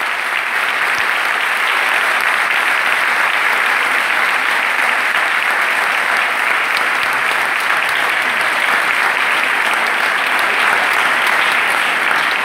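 An audience and band members applauding: a dense, steady round of clapping with no break.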